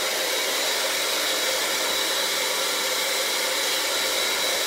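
Electric mixer running at a steady speed, beating heavy cream and brown sugar syrup into a whipped topping.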